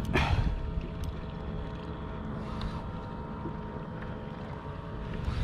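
Wind on the microphone and water moving against a fishing kayak at sea, a steady low rumble with a faint steady hum underneath. A short rustling knock comes just after the start.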